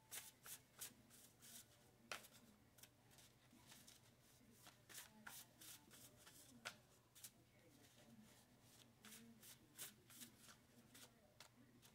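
Faint, irregular clicks and slaps of a tarot deck being shuffled by hand, over a low steady hum.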